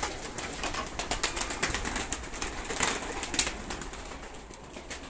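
A flock of white Leninakan pigeons flapping their wings inside a wire-mesh loft: a rapid run of wing claps that thins out after about three and a half seconds. The birds have been startled by someone entering.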